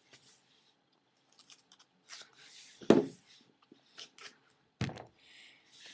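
Foam Nerf darts being loaded into a long half-inch PVC pipe: scattered light rustling and clicking, with two louder knocks about three and five seconds in.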